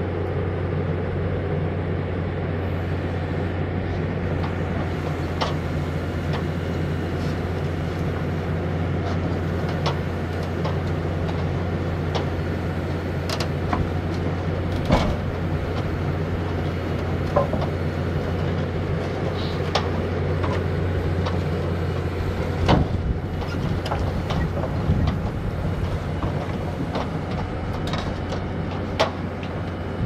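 Diesel engine of a tracked rock drill rig running steadily with a deep hum as the machine crawls slowly onto a steel trailer deck, with scattered sharp clanks from the steel tracks and trailer, one loud clank about 23 seconds in.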